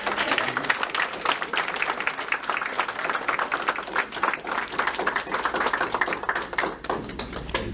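Audience applauding: many people clapping their hands in a dense, irregular patter that thins out near the end.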